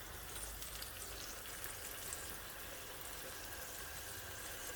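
Palm oil with onion and pepper frying in a pot, a faint steady sizzle with a few small crackles.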